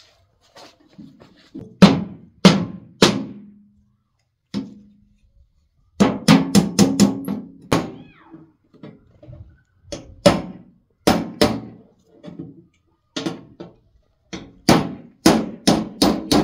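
A hand tool knocking sharply on a cardboard box at an irregular pace, with a quick run of knocks about six seconds in, as the box is worked open.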